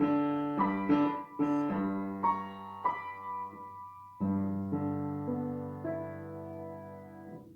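Piano played with both hands: a melody of separate notes over low held bass notes. It ends on a long chord that rings and fades out near the end.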